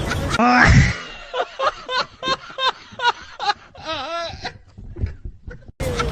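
A loud, low fart noise lasting about half a second, followed by a person laughing in a run of short, rising-and-falling bursts for about three seconds.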